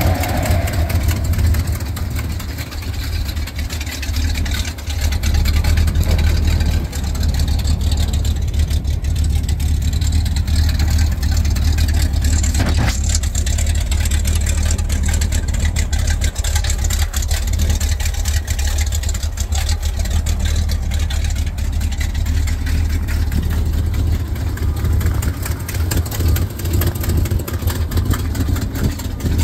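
1975 Chevrolet C65 truck's engine idling steadily.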